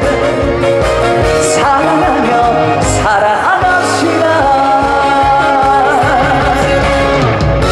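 Trot song played loud with a steady beat and held melody lines, in the instrumental break between sung verses.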